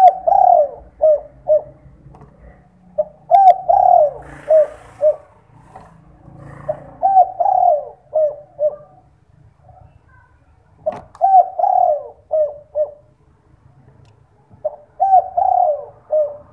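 A spotted dove (derkuku) cooing its 'kuk 2' song: five phrases about every four seconds, each a longer coo followed by a run of short notes.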